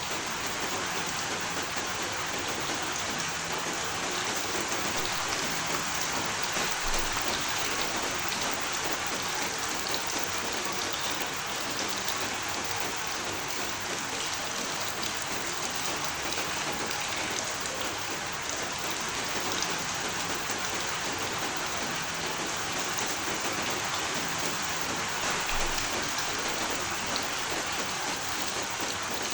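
Steady rain, an even hiss of many drops hitting a surface, with no change in intensity.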